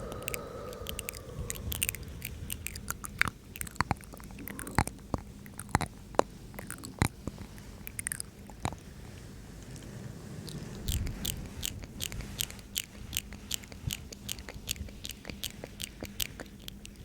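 Close-miked ASMR mouth sounds: wet mouth and tongue clicks, scattered at first and then coming in a quicker, more even run in the second half.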